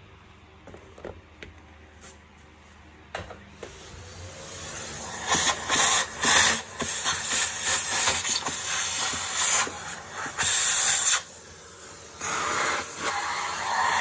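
A vacuum cleaner's hose nozzle sucking air in the emptied filter compartment of a canister vacuum: a hissing rush that starts about four seconds in and surges and drops as the nozzle is moved around, with a short lull near the end. Before it there are a few light clicks.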